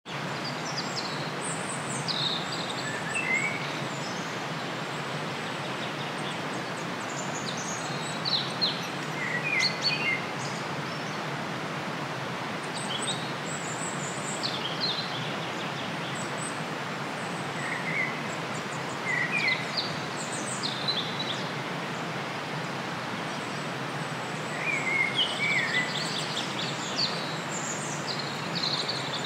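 Outdoor field ambience: a steady background hiss with small birds chirping and singing short phrases every few seconds, busiest about a third of the way in and again near the end.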